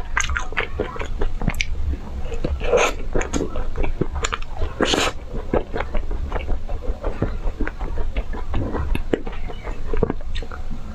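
Close-up biting and chewing of crackling ice cream: a dense, irregular run of crisp crunches and cracks.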